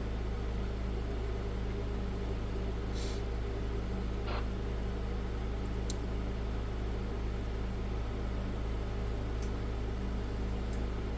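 Steady low background hum made of several even tones, with a few faint short clicks about three, four and a half, six, nine and a half, and eleven seconds in.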